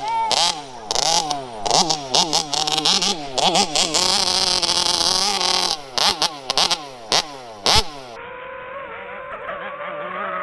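Large-scale RC car's motor revving up and falling off over and over, several times a second, with sharp clicks mixed in. About eight seconds in, the sound cuts to a steadier, more muffled motor tone.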